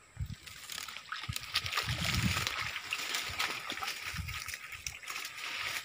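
Close rustling and crackling of palm fronds and brush on swampy ground, with three dull thuds spread across the few seconds.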